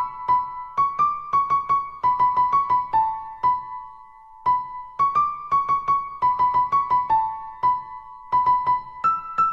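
Background music: a keyboard melody of short, quick high notes in a lively rhythm, with a brief pause about four seconds in.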